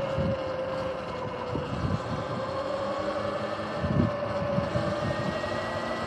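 Sur-Ron electric dirt bike's motor and drive whining while riding slowly, the pitch dipping slightly and rising again toward the end as the bike picks up speed. Low gusts of wind hit the microphone, strongest about four seconds in.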